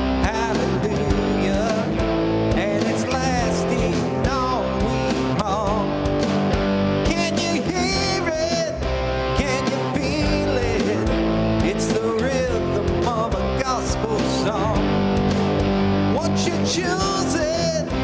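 Band music led by guitar, with a steady beat.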